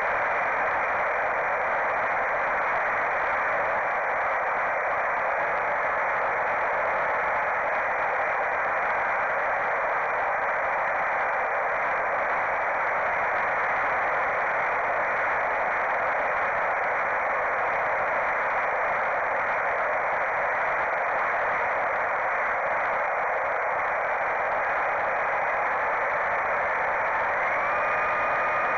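Mini Popwing flying wing's electric motor and propeller in flight, heard through the FPV camera's microphone over the analog video link: a steady, thin hiss with a faint motor tone that drifts in pitch and jumps higher near the end as the throttle is opened.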